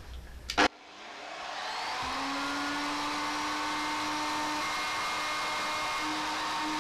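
A sharp click, then a 1400-watt electric plunge router's motor spins up over about a second and a half and runs steadily at full speed with a high whine, the pitch stepping slightly near the end.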